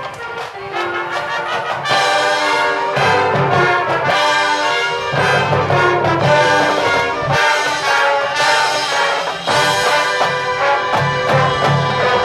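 High school marching band playing, with the brass section (trombones and trumpets) in front; the sound gets louder and fuller about two seconds in.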